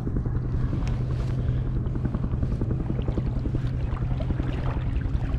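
Wind rumbling on the microphone over a steady low hum.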